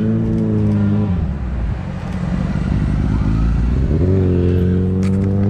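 Road vehicles' engines running as traffic drives through a roundabout: a steady engine drone that eases off about a second in and picks up again about four seconds in.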